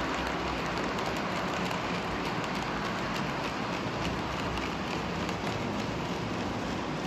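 HO scale model freight train of tank wagons rolling along the track: a steady rolling rumble with a rapid scatter of small metallic clicks from the wheels running over the rails.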